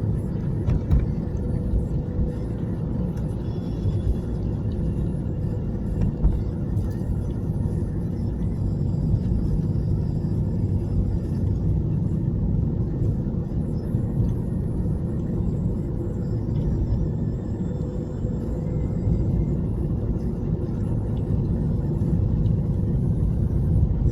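A car driving, with a steady low rumble of road and engine noise and no sharp events.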